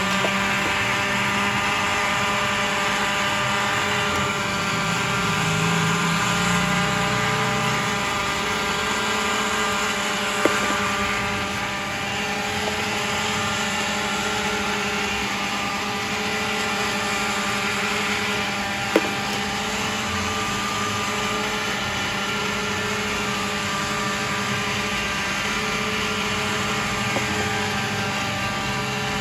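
Electric countertop blenders running with a steady whirring drone, mixing milk soda. Two short sharp clicks cut through, one about ten seconds in and one near nineteen seconds.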